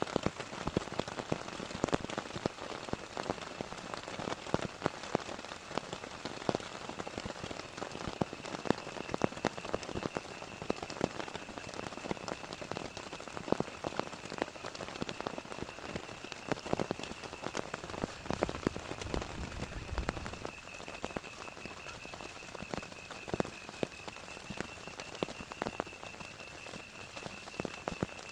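Heavy rain falling steadily, with many sharp individual drop hits close by. From about eight seconds in, a steady thin high tone runs underneath, and a short low rumble comes near the two-thirds mark.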